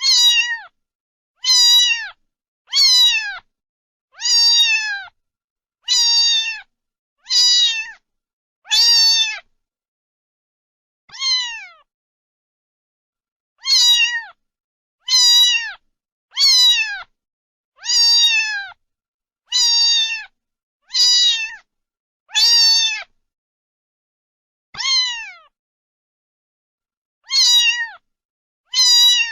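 A cat meowing over and over, about eighteen meows spaced a second or so apart, each one falling in pitch, with a few longer pauses in between.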